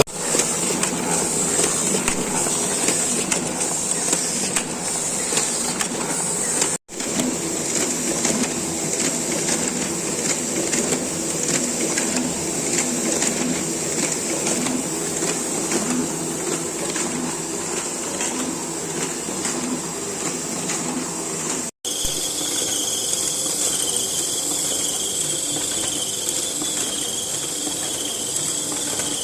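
Hamada B52-SF small offset printing press running, a steady mechanical clatter and hiss. It drops out abruptly twice, and after the second break a steady high whine sits over the running noise.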